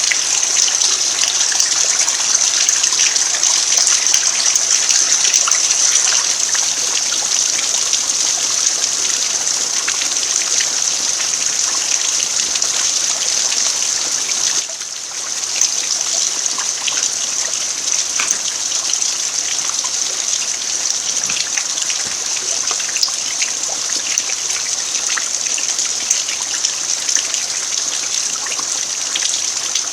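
Steady rain falling on a dirt yard, with many small drop ticks scattered through it. The level dips briefly about fifteen seconds in.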